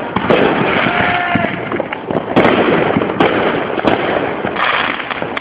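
Fireworks going off in quick succession: a dense, continuous crackle with many sharp bangs, the loudest about two and a half and three seconds in.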